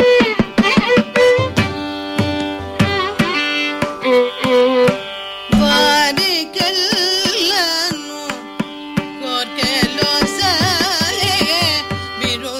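Carnatic classical music in raga Shankarabharanam: violin and voice trace heavily ornamented, sliding melodic lines over the strokes of a mridangam. A new phrase enters strongly about five and a half seconds in.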